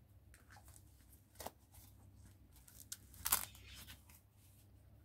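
Hook-and-loop strap of a fabric phone armband being pulled and pressed shut: two short rasping rips, the louder about three seconds in, over light rustling of the strap.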